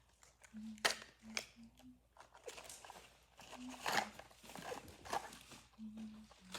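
Scattered rustling, crinkling and small clicks of Pokémon card packaging and cards being handled as the cards are worked out of the pack, with a few brief faint hums between.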